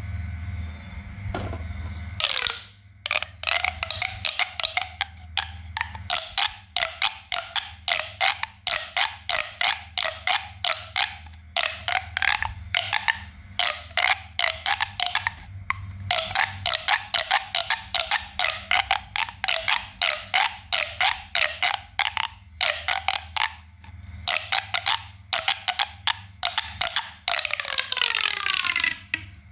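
A homemade pop-sound toy being popped over and over, sharp pops at about two to three a second, with a longer sound sliding down in pitch near the end.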